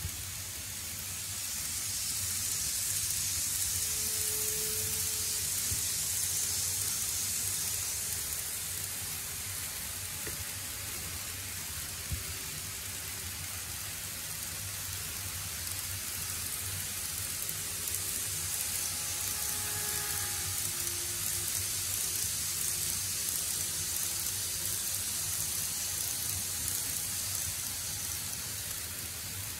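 N-gauge model trains (TOMIX E231 series) running on plastic track: a steady hissing rumble of small wheels rolling over the rail joints, with a low hum beneath and a few faint brief whines.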